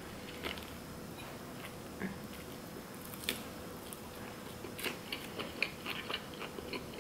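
A person biting into and chewing a sushi burrito wrapped in nori seaweed: soft, scattered short clicks of mouth and food, coming more often in the second half.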